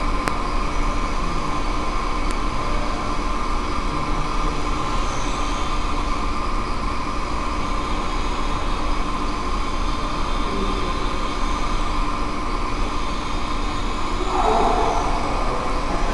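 Micro quadcopter's small brushed motors and propellers buzzing steadily in flight, a constant whine of several steady tones, with a brief louder swell about fourteen seconds in.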